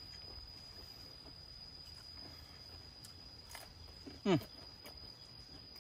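A steady high-pitched insect drone over quiet outdoor background. About four seconds in, a person makes a short vocal sound that falls in pitch.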